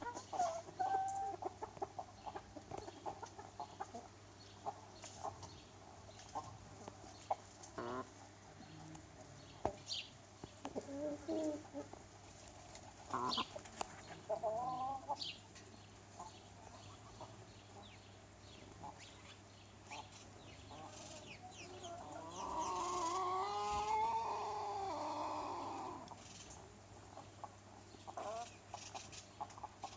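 A chicken flock clucking, with scattered short calls and sharp clicks. About two-thirds of the way through, one bird gives a louder, long, wavering call lasting several seconds.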